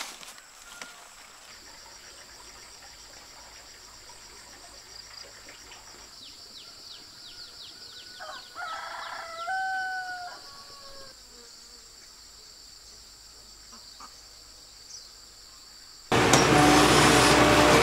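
Insects keep up a steady high-pitched drone, with a quick run of short falling chirps and a rooster crowing about nine seconds in. Near the end a loud excavator diesel engine cuts in suddenly.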